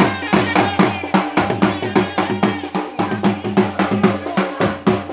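Traditional Himachali dhol and shehnai band playing a dance tune: a fast, steady drum beat under a wavering reed melody.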